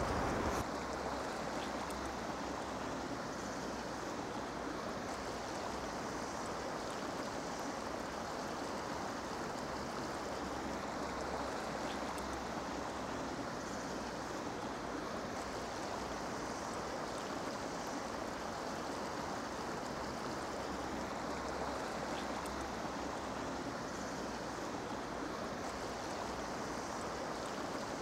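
Steady rushing of a shallow river flowing over gravel and stones, an even, unbroken water noise.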